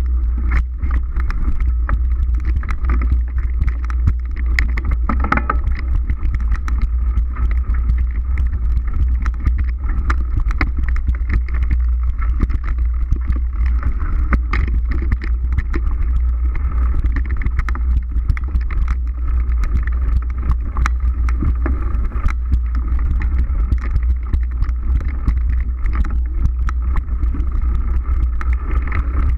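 Mountain bike ridden fast along a forest dirt trail: constant rattling and clicking as it jolts over the bumpy ground, under a loud steady low rumble of wind buffeting the microphone.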